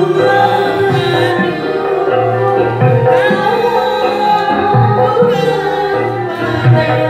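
A woman singing into a handheld microphone, amplified, over a backing music track with a steady repeating bass line.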